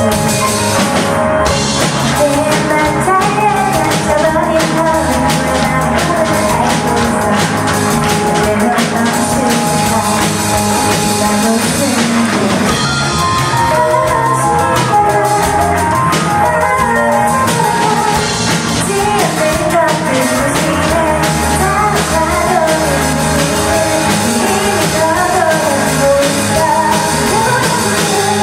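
A live rock band playing with drum kit and a singer, the music loud and continuous.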